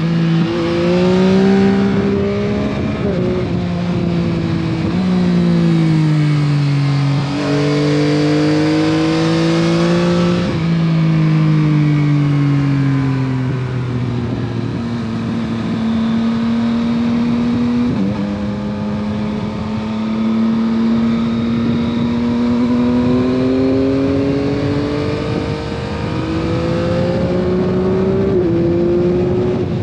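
Stock-exhaust 2021 Yamaha MT-09 SP, its 890 cc inline three-cylinder engine pulling and easing off under way. The engine note climbs and falls, with several sudden jumps in pitch as the gears change up and down.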